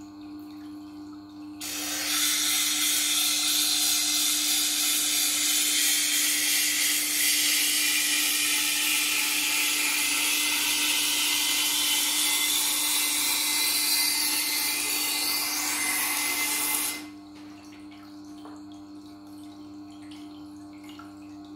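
Kitchen knife blade ground against the coarse grinding wheel of a Tormek sharpener, grinding the bevels and setting the edge apex. The steel on the abrasive wheel makes a loud, even hiss that starts about two seconds in and stops sharply near seventeen seconds, over the machine's constant low motor hum.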